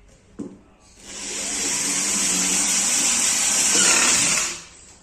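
Corded electric drill running for about three and a half seconds, spinning up after a short click and then stopping, as it works at a joint of a wooden bed frame being assembled.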